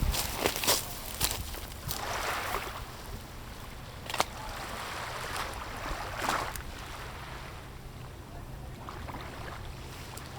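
Lake water lapping, with wind on the microphone, a few short swishing swells and one sharp click about four seconds in.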